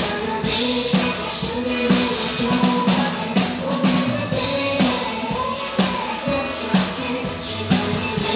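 Drum kit played along to a Mandarin pop duet recording, with a steady beat and singing in the track.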